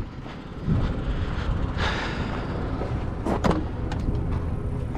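Pickup truck's rear cab door being opened over a steady low rumble. There is a noisy clunk about two seconds in, then two short falling squeaks.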